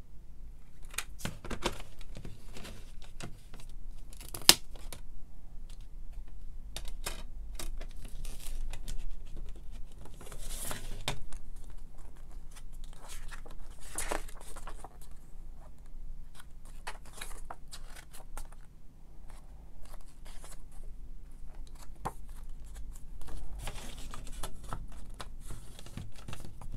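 Hands handling a plastic CD jewel case and its paper booklet: scattered plastic clicks and taps with paper rustling and sliding, and a sharp click about four and a half seconds in.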